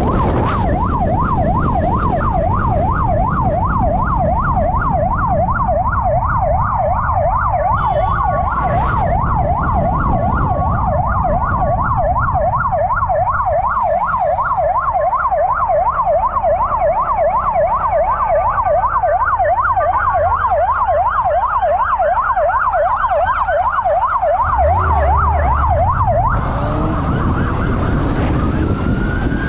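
Police motorcycle siren in a fast yelp, its pitch rising and falling about three to four times a second, over the wind rush and engine noise of the moving bike. The yelp stops about 26 seconds in, and a slower siren wail starts.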